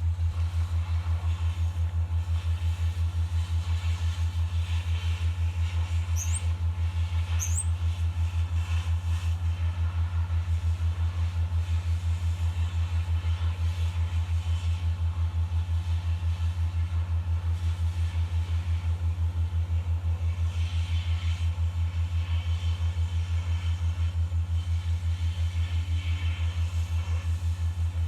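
Steady low machine hum that pulses evenly a few times a second, with two short high rising chirps about six and seven seconds in.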